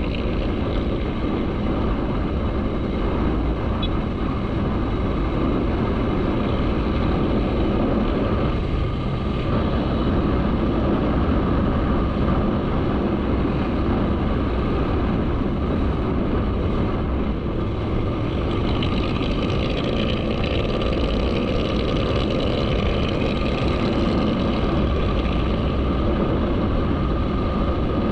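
Motorcycle engine running steadily under a dense, noisy rumble, with no clear rise or fall in pitch.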